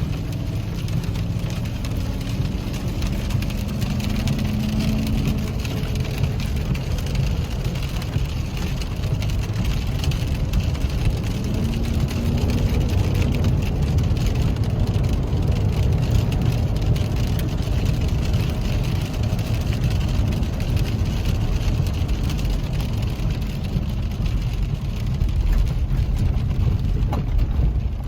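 Steady rumble of a car driving: engine and road noise heard from inside the vehicle, with a faint hum that rises and falls now and then.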